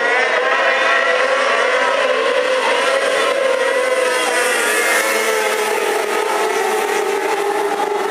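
Engines of a pack of winged speedway cars running together on a dirt track, several engine notes overlapping and wavering as the cars race.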